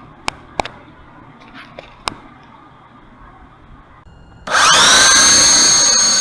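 A few light clicks, then about four and a half seconds in a small quadcopter's motors start up suddenly into a loud, high whine that rises briefly and then holds steady.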